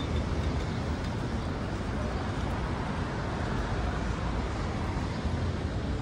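Steady city street traffic noise: a continuous low rumble and hiss of passing vehicles, with no single event standing out.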